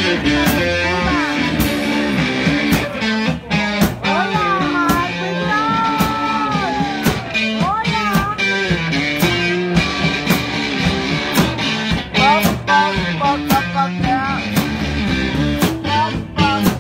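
Live rock band playing: electric guitar lead with bent, gliding notes over bass guitar and a steady drum beat.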